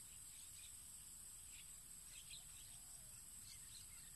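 Near silence: faint evening countryside ambience, a steady high insect drone with a few faint scattered bird chirps.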